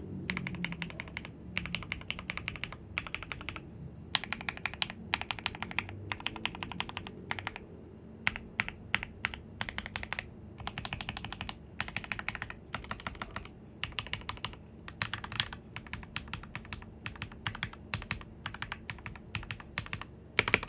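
Typing on a Royal Kludge RK84 mechanical keyboard with lubed Gateron Milky Yellow linear switches and PBT keycaps: fast runs of keystrokes in bursts of a second or two, broken by short pauses.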